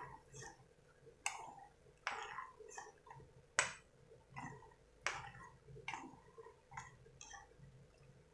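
Metal spoon stirring macaroni in boiling water in a nonstick pan: faint, irregular clicks and knocks of the spoon against the pan, about one a second, some trailing off in a short swish.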